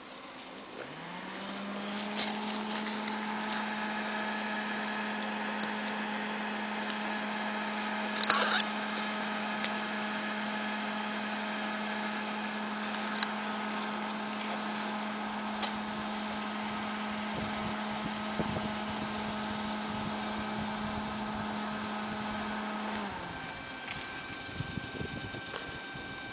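Steady mechanical hum of a small motor, rising in pitch as it spins up about a second in and falling away as it winds down near the end, with a few sharp clicks and a rustle from handling the plastic nest tube.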